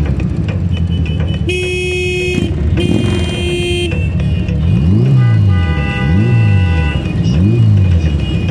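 A vehicle horn gives two long honks, about half a second apart, over the steady low rumble of motorcycle engines in slow traffic. Music with a rhythmic rising-and-falling bass picks up again in the second half.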